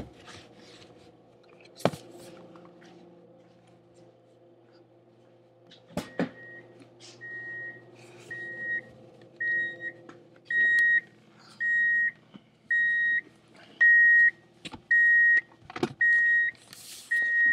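A car's warning chime beeping, one steady tone about once a second, starting about six seconds in and getting louder partway through. A few sharp knocks come before and between the beeps.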